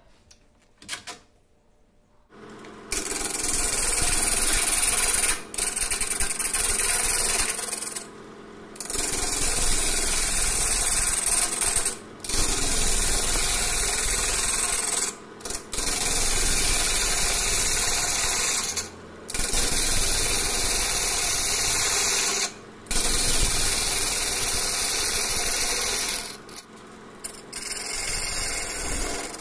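A hand-held turning tool cutting the rough outside of a very hard mastic wood blank spinning on a wood lathe: a loud, rasping hiss of shavings being cut. It starts after a couple of quiet seconds and breaks off briefly about every three to four seconds.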